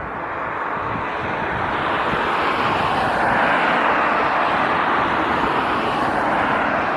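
Airbus A321neo airliner's jet engines, a loud steady rush that swells to a peak about halfway through and then eases a little as the aircraft passes.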